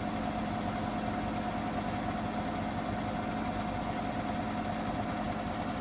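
Hoover washing machine spinning at 800 rpm near the end of its refresh cycle: a steady motor whine over a low hum.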